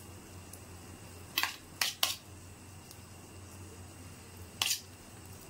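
Four short scrapes of a cooking utensil against a kadai while filling and batter are spread around in it: three close together about a second and a half in, one more near the end, over a faint steady low hum.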